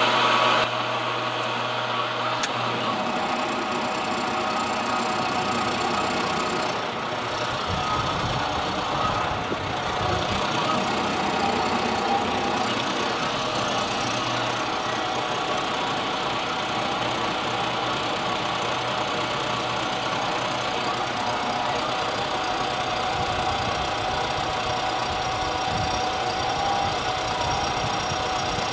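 Milling machine running on power feed, its cutter taking a light facing pass across the mating surface of a Harley-Davidson Ironhead Sportster cylinder head: a steady machine drone with cutting noise.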